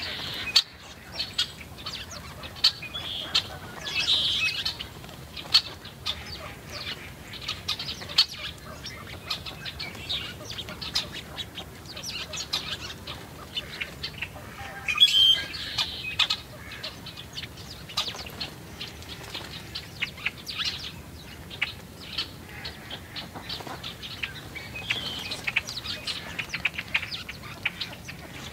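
A flock of small birds at a seed feeder: many short, high chirps and wing flutters, with busier bursts of chirping about 4, 15 and 25 seconds in.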